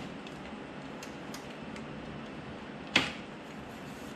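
Light clicks and one sharp clack about three seconds in as a paramotor's tubular hoop frame section is worked loose from the frame, over a steady background hum.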